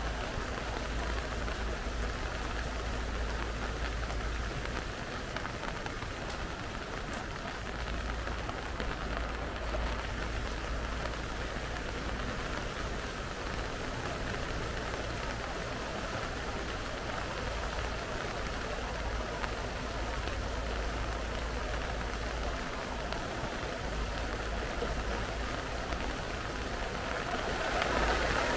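Steady rushing of a swollen creek in flood, its fast, muddy water carrying branches and debris, with a low rumble underneath. It grows a little louder near the end.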